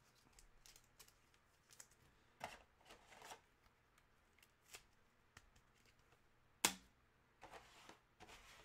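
Soft rustles and light clicks of trading cards and a rigid plastic card holder being handled and set down on a table, with one sharper tap about two-thirds of the way through.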